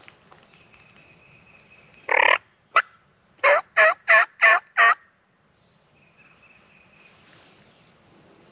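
Turkey yelping on a Bone Collector Ridge Strutter diaphragm mouth call: one longer note and a short one about two seconds in, then five evenly spaced yelps in quick succession, each with a break in pitch.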